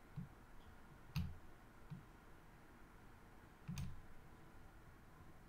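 Computer mouse buttons clicking four times, two of the clicks louder, about a second in and near four seconds in, over faint room noise.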